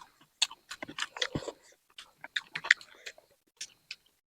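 Close-miked chewing and biting of a person eating spicy chicken: irregular short wet clicks and smacks of the mouth, several a second.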